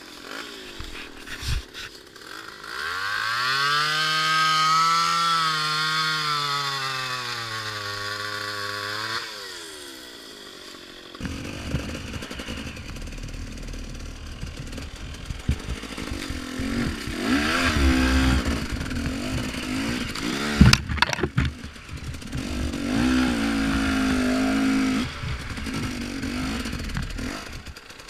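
A chainsaw revs up and runs at high speed for about six seconds; its pitch sags near the end, and then it stops. From about eleven seconds in, a two-stroke dirt bike engine runs, its revs rising and falling as the bike is ridden along a trail, with a sharp knock about twenty seconds in.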